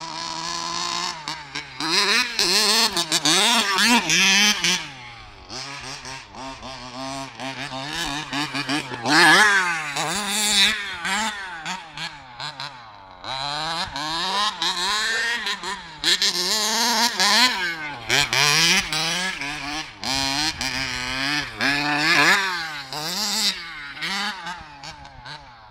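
HPI Baja 5B 1/5-scale RC buggy's KM two-stroke petrol engine, revved up and down over and over as the buggy is driven hard. The pitch climbs and drops every second or so, with several louder full-throttle runs.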